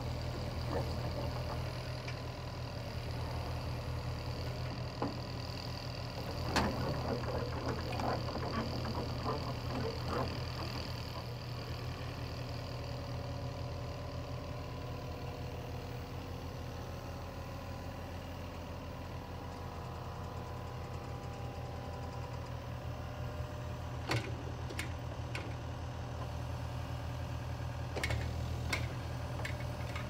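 Yanmar mini excavator's diesel engine running steadily while it drives up the ramps onto a trailer deck. Rattling and clanking come from the tracks crossing the ramps and deck for about the first ten seconds, and a few sharp knocks sound near the end.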